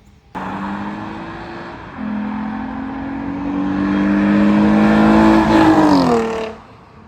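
Lexus GS350 F Sport's 3.5-litre V6 revving through a new aftermarket exhaust with X-pipe, resonators and active mufflers, the muffler valves still closed. The revs climb slowly for several seconds, then fall away, and the sound cuts off about six and a half seconds in.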